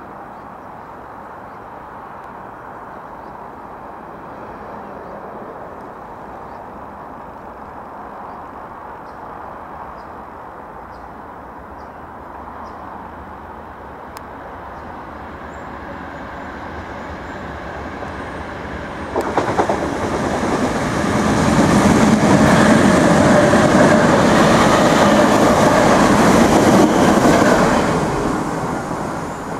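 Irish Rail 8300 class DART electric multiple unit approaching with a slowly building rumble, then passing close by: a sudden loud rush of wheels on rail starts about two-thirds of the way in, holds for several seconds and fades near the end as the train moves away.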